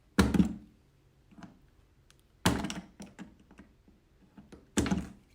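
Utility knife blade cutting through the pen's wall to free a cut-out piece: three sharp cracks a little over two seconds apart, with faint scraping ticks between them.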